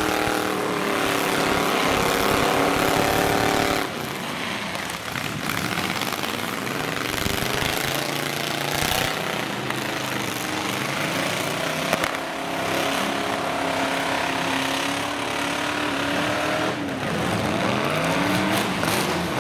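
Demolition derby pickup truck engines running hard and revving, their pitch rising and falling as the trucks push and ram, with a single sharp knock about twelve seconds in.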